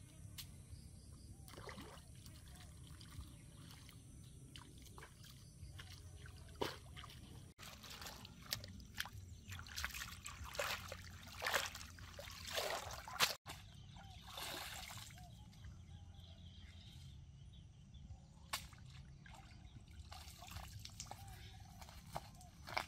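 Water sloshing, trickling and splashing as a woven basket of vegetables is dipped and swished in pond water, in irregular bursts that are busiest around the middle.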